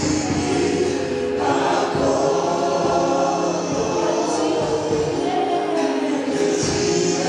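Choir singing gospel worship music, with steady sustained chords underneath.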